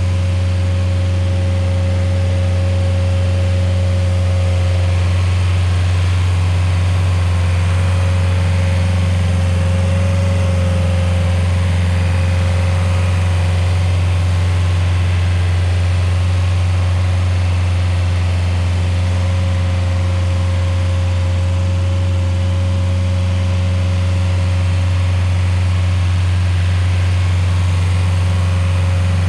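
Rayco RG50 stump grinder's engine running steadily at a constant speed, a deep even hum with no change in pace.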